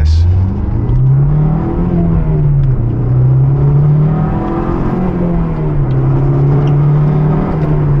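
2008 Honda S2000's inline-four, with an aFe Takeda intake, heard from inside the cabin as the car pulls away: the revs climb and drop back twice as the driver shifts up, then hold steady near the end.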